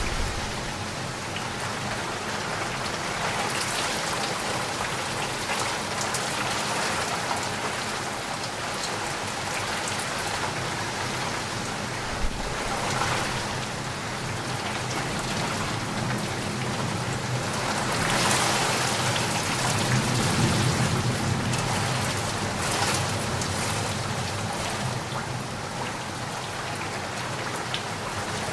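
Steady rain falling on a surface, a continuous even patter that swells louder for a few seconds at a time, strongest about two-thirds of the way through.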